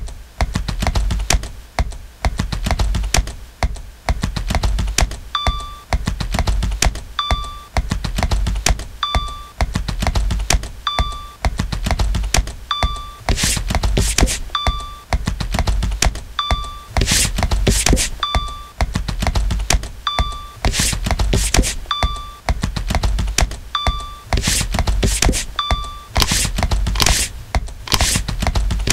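Rapid plastic clicking, as from a computer mouse button. From about five seconds in a short electronic beep repeats about every two seconds, and from about thirteen seconds loud rasping scrapes, often in pairs, come from a ridged white plastic piece rubbed over fabric.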